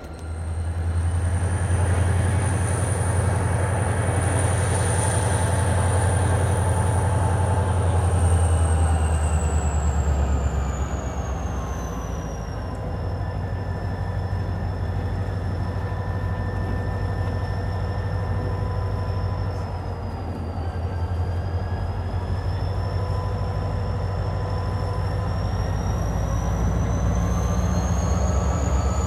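Diesel locomotive passing close by under power, a GP40M-3 hauling boxcars, with a deep steady engine rumble. Over it a high whine drops in pitch about ten seconds in and climbs again near the end.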